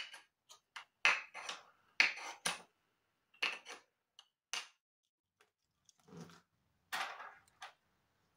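Irregular light clicks and wooden knocks as fingers press and shift the thin slats of a small wooden tracker board on a desk. There are about a dozen sharp taps, the loudest about one and two seconds in, with a duller knock around six seconds.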